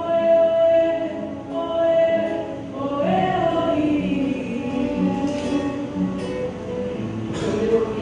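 Background music with singing: long held sung notes over an accompaniment.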